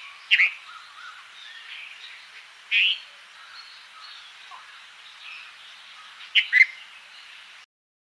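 Red-vented bulbul giving short, sharp calls, once near the start, again a little before the middle, and a quick double call near the end. Fainter birdsong chatters underneath, and the sound cuts off just before the end.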